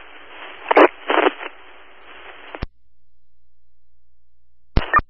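Fire department radio scanner channel: an open carrier with static hiss and two brief garbled bursts, cut off by a squelch click about two and a half seconds in. A low hum follows, and another click near the end as the next transmission keys up.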